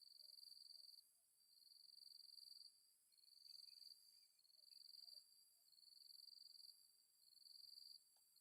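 Insects trilling: a faint, high pulsed trill, each about a second long, repeating with short gaps over a steady high insect hiss.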